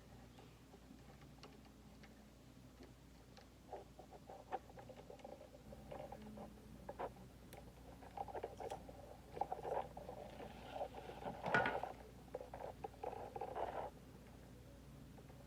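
Small clicks, scrapes and rustling of hand tools and electrical wire being worked while wires are joined with crimp butt connectors. The sounds are sparse at first and come thick and fast in the second half, with the sharpest click about eleven and a half seconds in.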